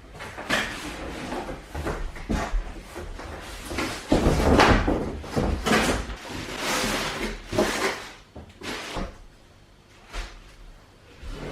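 Flat-pack sofa parts being handled during assembly: irregular knocks and bumps of panels and pieces, with longer stretches of scraping and rustling.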